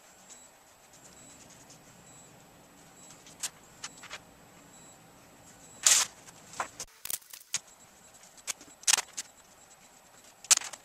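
Scattered short handling sounds, sharp clicks and rustles from window film and tools being worked by hand. They come more often and louder in the second half, with a few sharp ones about six, nine and ten and a half seconds in.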